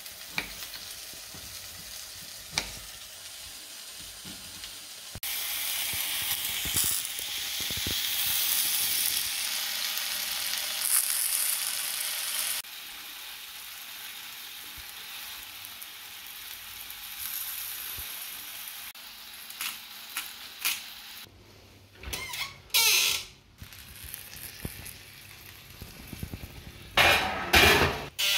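Portobello mushrooms frying in butter in a cast-iron skillet: a steady sizzle that grows louder for several seconds, then settles back. A couple of knife taps on a cutting board at the start, and a run of louder knocks and scrapes near the end as the skillet goes into an oven.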